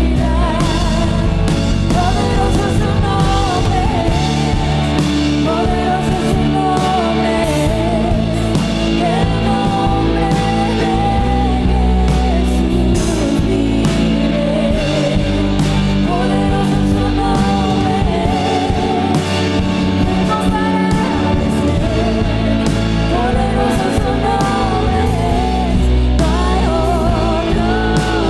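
Live worship music with a band and singing: a sung melody over sustained chords and a steady low bass.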